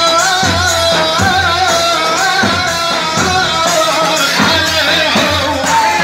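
Music with a wavering, ornamented melody line over a steady drum beat, with some singing.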